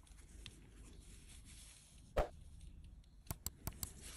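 Faint steady hiss, one sharp knock about two seconds in, then a quick run of four or five sharp clicks near the end.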